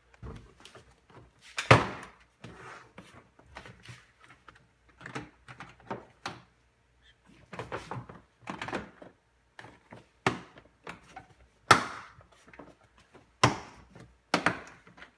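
Plastic tailgate trim panel being pushed and knocked into place, its clips hard to seat: a series of irregular clicks and knocks, with single sharp thuds about two seconds in and three more near the end.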